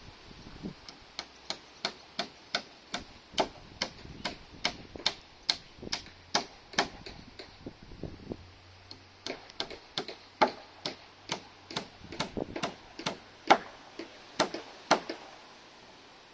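Hammer driving nails into wooden roof battens: regular sharp blows, about two to three a second, with a short pause just past the middle, then another run of blows that stops shortly before the end.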